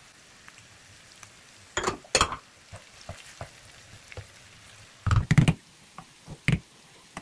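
Sliced red onion tipped into a pan of frying beef about two seconds in, then a wooden spoon stirring and scraping through the mix in a nonstick pan, in strokes about five seconds in and again shortly after, over a faint sizzle.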